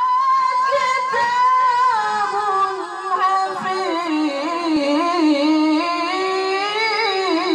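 A male qori reciting melodically into a microphone in the tilawah style: one long, nearly unbroken phrase of held, wavering notes with quick ornamental turns.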